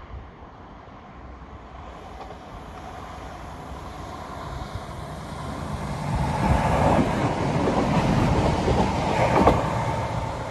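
Class 170 Turbostar diesel multiple unit approaching and passing close by, its engine and wheels growing steadily louder from about six seconds in, with a few rail-joint clicks. It is loudest just before the end, then starts to fade.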